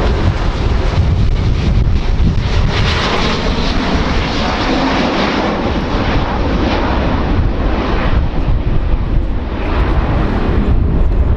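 Airbus A350-900 airliner's Rolls-Royce Trent XWB turbofan engines heard in flight: a loud, continuous jet noise with a deep rumble, wavering in level as the aircraft passes.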